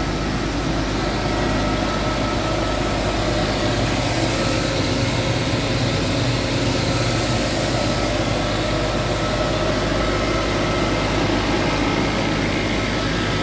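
Steady running noise of chiller-plant machinery, an even mechanical drone with a few faint steady tones over it.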